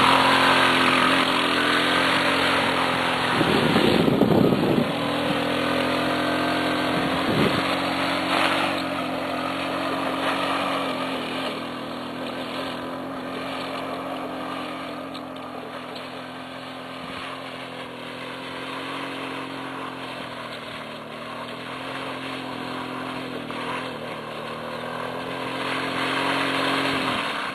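A 150 cc off-road buggy's engine runs at fairly steady revs as the buggy drives off, its sound fading with distance. It grows louder again near the end as the buggy comes back.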